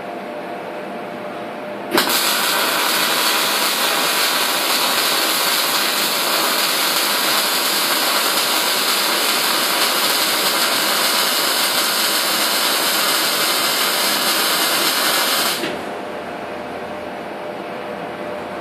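Electric arc welding a hinge onto a door frame: the arc strikes sharply about two seconds in, hisses and crackles steadily for about thirteen seconds, then cuts off, leaving a steady machine hum.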